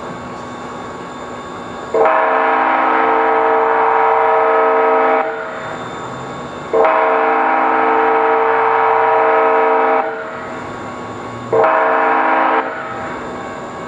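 DCTA A-Train's multi-tone air horn sounding the grade-crossing signal: two long blasts of about three seconds each, a short blast, and the final long blast starting at the very end. A steady rumble of the train fills the gaps between blasts.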